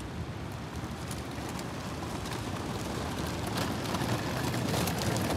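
Outdoor city noise: a steady rushing hum like passing traffic that grows slowly louder, with a few faint ticks.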